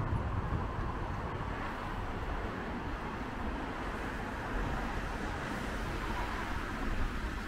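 Steady outdoor background noise: an even rushing hiss with a low, unsteady rumble of wind on the microphone.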